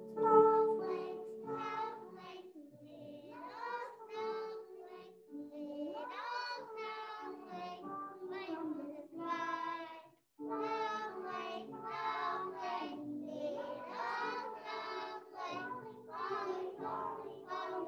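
A group of young children singing a song together over instrumental accompaniment, with hand-motion choreography. The sound cuts out briefly about ten seconds in.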